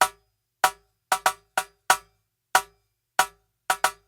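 Rim clicks: an ordinary drumstick striking the rim of a Baterinho percussion box about ten times in a loose rhythm, each a sharp, dry click with a short ring.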